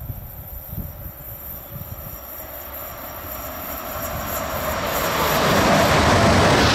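CRRC Bison electric locomotive approaching and passing close by: its rolling noise builds steadily and is loudest near the end.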